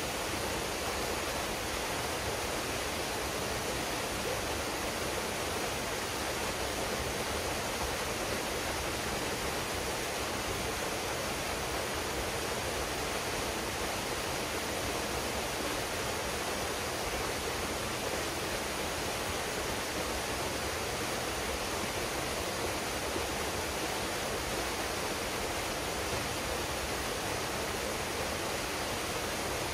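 Waterfall pouring into a pool: a continuous, even rush of falling water.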